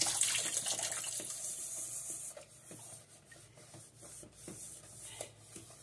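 Kitchen tap running into a stainless steel sink and over a metal pot, cutting off about two seconds in; then a sponge scrubbing the inside of the pot, with a few light knocks.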